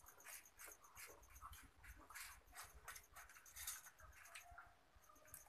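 Faint, irregular crackling and scratching of crisp besan sev being picked from steel plates with the fingers and eaten.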